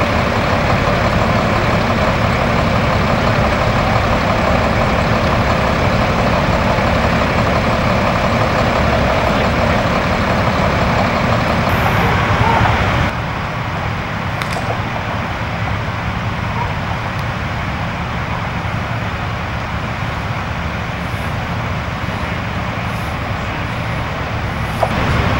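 Steady drone of a fire engine's diesel idling, a little quieter from about halfway through.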